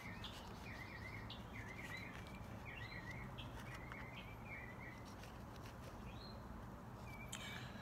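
Faint birdsong: a run of short, high warbled phrases repeated every half second or so, over a low steady background hum.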